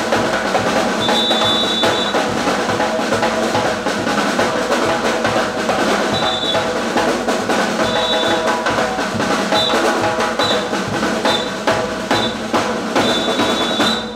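Gombey drum troupe playing snare-type side drums and a bass drum in dense, continuous drumming. A high, shrill tone sounds in short repeated blasts over the drums.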